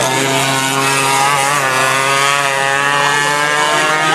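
Racing kart engines running at high revs as a pack of karts goes by, the pitch wavering up and down.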